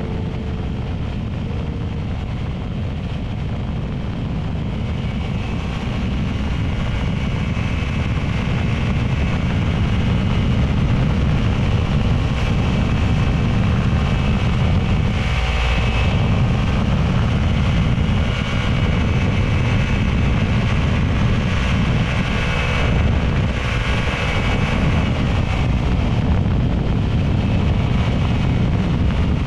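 Quad City Challenger II ultralight's engine running steadily, with wind noise on the microphone; the engine gets a little louder about eight seconds in.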